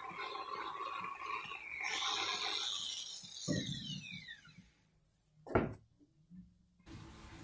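Angle grinder working on an air compressor's cylinder block, then switched off, its whine falling as it spins down about three seconds in. A sharp knock follows as the tool is set down on the steel bench, and a steady noise starts near the end.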